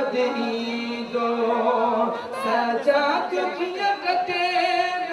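Sindhi naat sung by a man's voice without instruments, with long held notes and ornamented glides in pitch.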